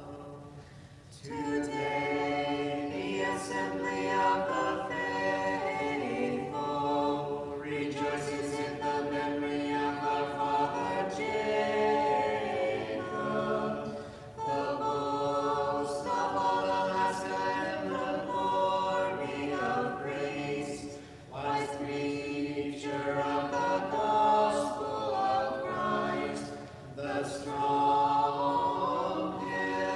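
Orthodox church choir singing a liturgical hymn a cappella, in long sustained phrases with short breaks between them.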